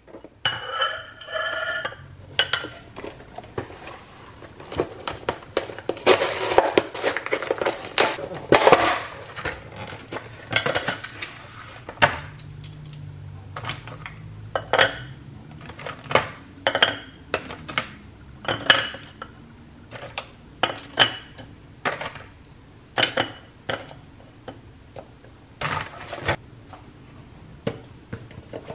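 Metal kitchen tongs clicking and tapping against a clear plastic container and a ceramic plate as frozen croissant dough pieces are picked out and set down, one sharp click after another. A stretch of crackly plastic clatter from the container comes a few seconds in, and a brief ringing clink at the start.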